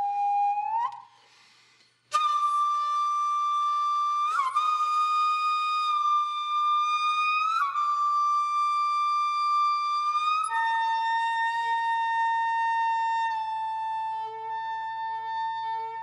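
Background music: a solo flute playing slow, long held notes that bend slightly in pitch where they change. The music breaks off briefly about a second in.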